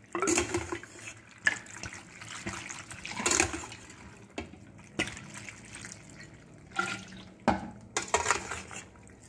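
Cold water running and splashing over boiled penne pasta in a metal colander, with irregular surges as the pasta is tossed and shaken to drain.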